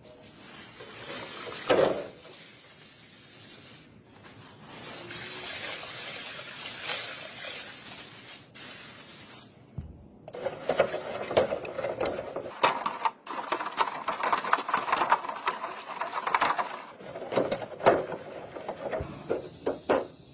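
Liquid poured into a sheet-metal tin, then a stick stirring it and knocking against the tin's sides. A hiss runs for several seconds in the first half, and quick clatters follow in the second half.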